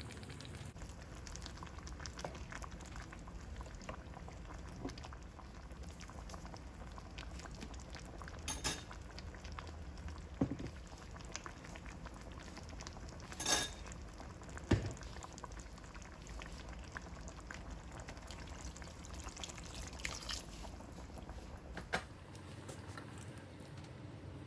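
Masala gravy with eggplant bubbling and sizzling in a pan, with a few sharp clicks and knocks scattered through it. The low part of the sound drops away near the end.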